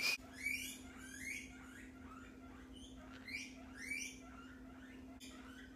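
Guinea pigs wheeking: a rapid series of short, upward-sweeping squeals that trails off about four seconds in. They are begging for food, set off by the fridge opening and the offer of kale.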